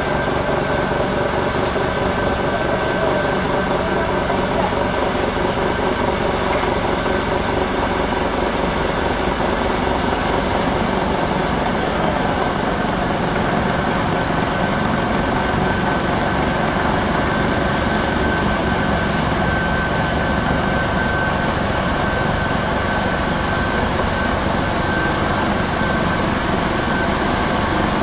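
Rotary snow blower running steadily under load, its engine and impeller throwing snow, with a steady high whine over the engine sound.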